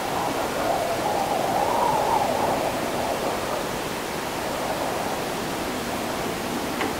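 Steady after-rain city ambience of wind with a wet hiss, and a faint howl that rises and falls slowly in the first couple of seconds before fading. A faint tick comes just before the end.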